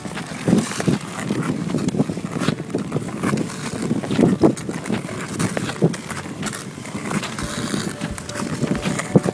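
Ice skates scraping and gliding over rough natural ice in uneven strokes, about one or two a second.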